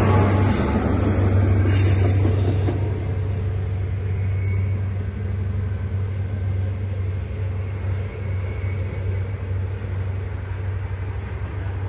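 Diesel train running with a steady low engine hum and rumble that slowly fades. Two short hisses come in the first three seconds.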